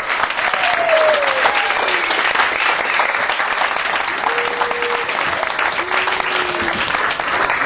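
Audience applauding, with several shouted whoops and cheers.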